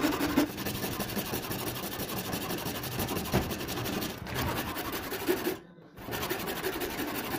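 Hand saw cutting through a block of hardwood in quick, repeated strokes, a rough rasping of the teeth in the grain that breaks off briefly about three-quarters of the way through.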